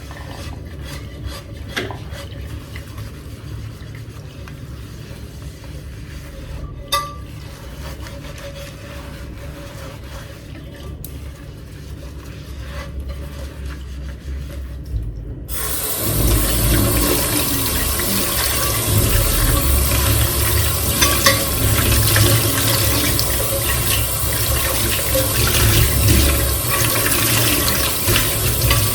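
A couple of knocks from handling, then about halfway through a kitchen sink tap is turned on and water runs steadily into the sink while the microwave's turntable tray is rinsed under it, with small knocks of the tray.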